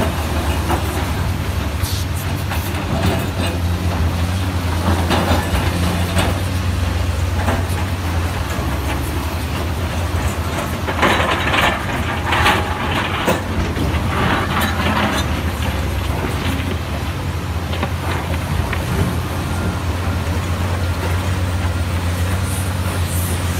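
Komatsu PC450 hydraulic excavator working rock: its diesel engine drones steadily under load, with a run of scraping and clattering from the bucket and rock about eleven to fourteen seconds in.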